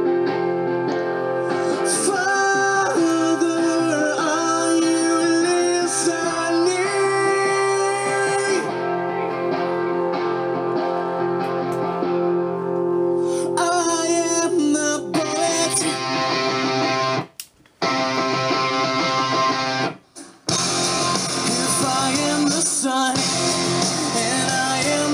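A guitar song with singing played through a Sharkk Boombox Bluetooth 4.0 portable speaker, streamed from a tablet. The music breaks off twice for a moment, about 17 and 20 seconds in.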